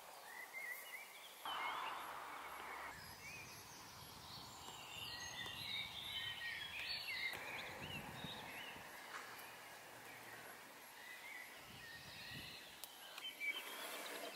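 Faint birdsong: several small birds chirping and warbling, busiest around the middle, over a low outdoor hiss, with a brief rush of noise about a second and a half in.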